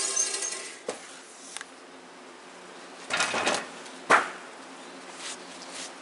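Sawmill's sawing noise dying away in the first second after the cut through a maple log. Then a few knocks and a short scraping rush as the sawn wood is handled, with the sharpest knock about four seconds in.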